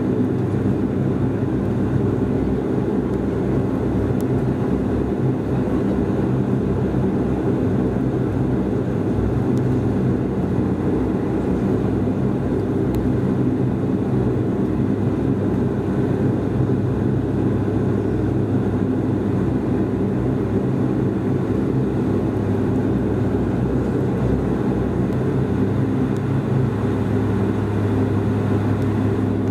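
Cabin drone of a Bombardier Dash 8-Q400's twin Pratt & Whitney PW150A turboprop engines and propellers, heard inside the cabin as the aircraft taxis at low power. The steady drone holds throughout, and a low hum strengthens near the end.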